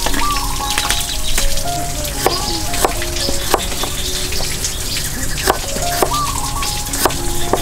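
Cleaver slicing garlic cloves on a chopping board: several sharp knocks at uneven intervals. Under them are a steady crackling hiss and soft background music with a repeating melody.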